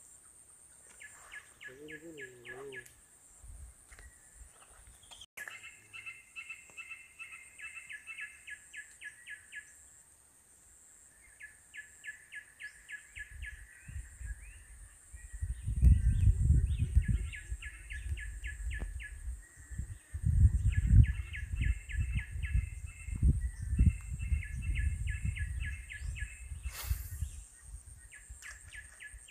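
Repeated runs of quick, evenly spaced chirps from a small animal in the background, several a second, stopping and starting. From about halfway on, louder low knocks and rubbing come from a phone being handled on a work mat.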